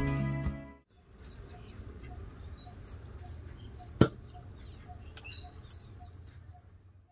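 Background music fades out in the first second. Then a bird repeats a single short note about twice a second, and high chirps from small birds come around five to six seconds in. A single sharp knock sounds about four seconds in.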